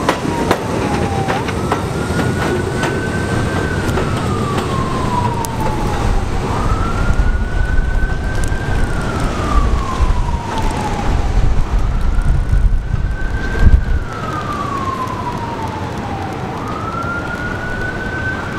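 An emergency vehicle's siren wailing, slowly rising and falling about every five seconds. Under it runs the low rumble of an R68A subway train pulling away on the elevated track, with a few clicks near the start; the rumble drops away about two-thirds through.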